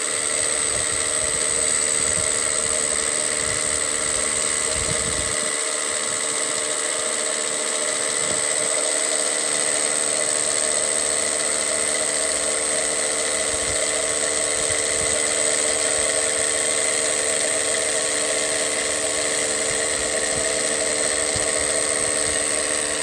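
Cordless drill with a masonry bit boring steadily into a concrete slab, its motor running at a constant pitch throughout.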